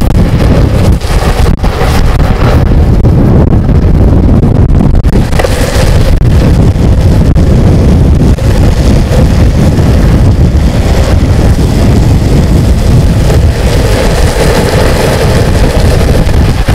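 Loud, steady wind rush buffeting the microphone at downhill longboarding speed, over a low rumble of skateboard wheels rolling on asphalt.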